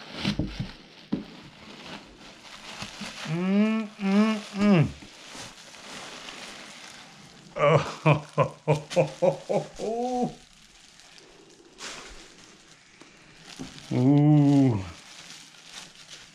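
A man's wordless vocalising: a couple of drawn-out hooting 'ooh' notes, a run of about eight short hummed notes, then one long 'ooh' near the end. Plastic wrap crinkles faintly between them as the mask comes out of the box.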